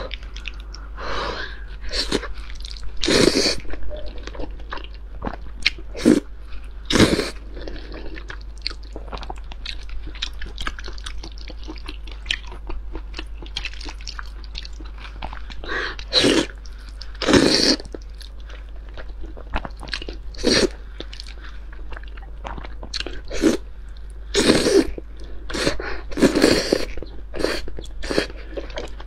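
Close-up eating sounds of spicy noodles with crayfish tails: noodles slurped in loud, irregular bursts every second or few, with chewing in between.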